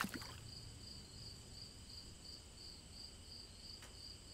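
Faint, high-pitched, cricket-like chirping that pulses about three times a second over a steady thin high whine, with a single faint click near the end.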